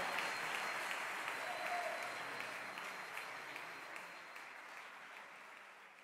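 Applause, fading away gradually to silence.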